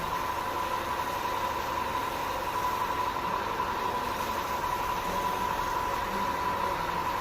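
A small motor-driven tool running steadily, with an even high whine over a hiss.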